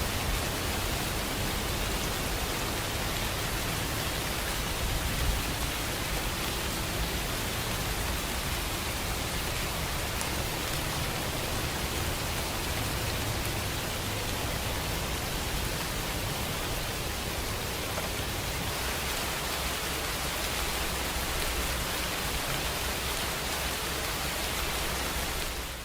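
Steady rain falling, an even hiss with a low rumble beneath, which fades out right at the end.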